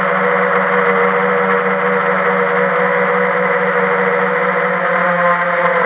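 Quadcopter's electric motors and propellers whirring steadily in flight, picked up by its onboard camera: a constant buzz with several steady tones that waver slightly in pitch.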